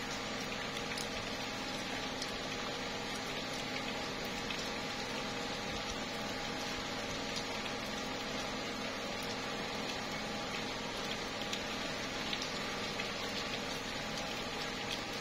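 Slow, light rain falling on tree leaves: a steady patter with scattered separate drop ticks.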